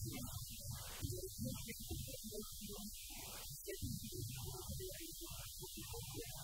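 A steady electrical hum, with a muffled, garbled man's voice breaking in and out over it.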